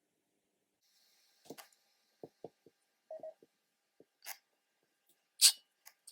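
Scattered small clicks and taps of hand tools being handled during the wire work, about a dozen in all, with one much louder sharp click about five and a half seconds in.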